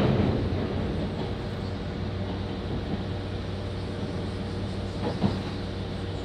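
Running noise of a local train heard from inside the car: a steady rumble of wheels on rail with a low hum, and a single short knock about five seconds in.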